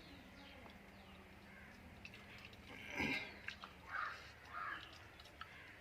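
A bird giving three harsh calls, about three seconds in, the first the loudest.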